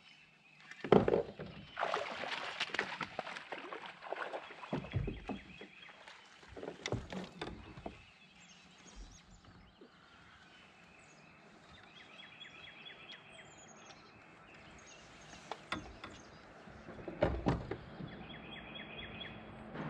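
Knocks and splashes from a fishing kayak as the angler handles his rod and gear, clustered in the first few seconds and again near the end. In the quieter stretch between, faint high chirps and short whistles are heard.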